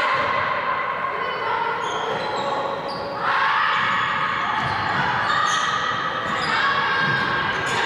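Handball play on an indoor court: the ball bouncing, sports shoes squeaking and players calling out, echoing in a large sports hall.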